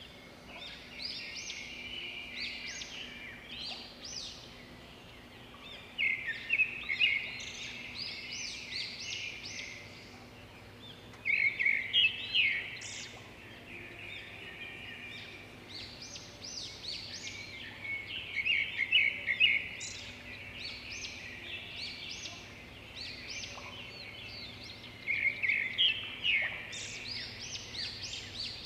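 Birds chirping and calling in quick bursts every few seconds, over a faint steady low hum.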